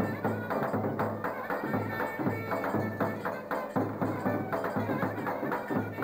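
Turkish folk dance music on davul and clarinet: a clarinet melody over quick, even drum strokes.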